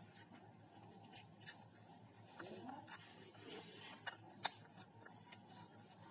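Faint scraping and a few sharp little clicks as a thin card or blade is worked under the cracked touch glass of a Lava A97 phone, prying the glass away from the frame.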